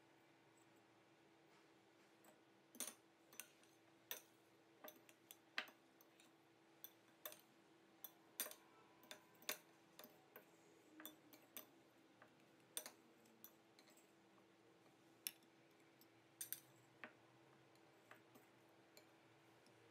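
Metal forks clicking and tapping against white ceramic bowls, in irregular sharp ticks, a few louder than the rest, as a dough patty is dipped in beaten egg and turned in bread crumbs. A faint steady hum lies underneath.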